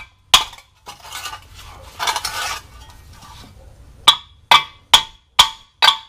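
Hammer blows on a 2006 Honda Civic's lower ball joint in the steering knuckle, beating it to drive it out, metal ringing on each strike. One blow about a third of a second in and a short stretch of clatter, then five quick blows about half a second apart near the end.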